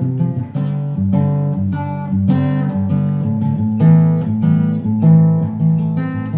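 Instrumental background music: plucked guitar-like notes picked one by one, about two notes a second.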